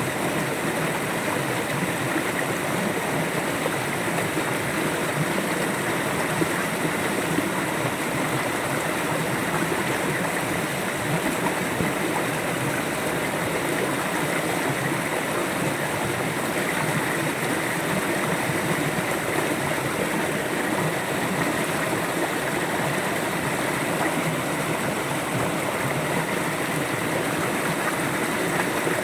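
River water flowing steadily, an even rushing and gurgling with no change in level.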